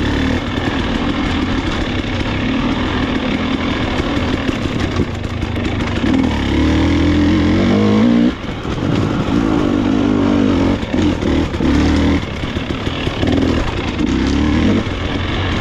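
Dirt bike engine ridden hard on the trail: it revs up with its pitch climbing about six seconds in, drops off sharply just after eight seconds as the throttle is shut, then picks up again with the throttle repeatedly eased off and opened.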